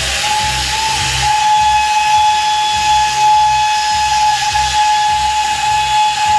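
Steam locomotive whistle blowing one long, steady blast over the hiss of escaping steam.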